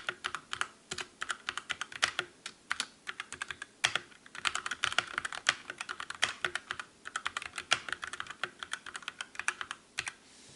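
Typing on a Drevo Calibur 60% mechanical keyboard with Outemu red linear switches: a fast, steady run of keystrokes with brief pauses, stopping near the end.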